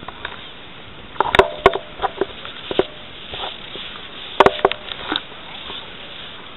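Handling noise from a handheld camera: irregular sharp knocks and rustles in two clusters, about a second in and again just past four seconds, with faint rustling between.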